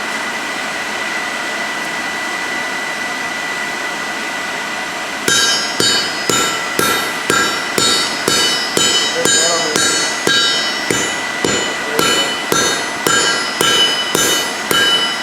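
Steady rushing of the coal forge's air blower with a thin whine. About five seconds in, hand-hammer blows on the hot steel over the anvil begin, two to three a second, each ringing briefly.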